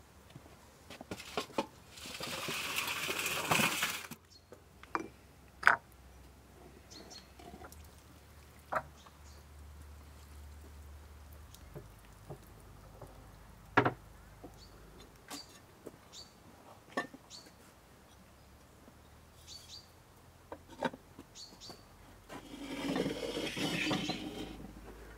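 Cookware and utensils clinking and knocking during food preparation, in scattered single strikes. Two longer rushing sounds come a couple of seconds in and again near the end.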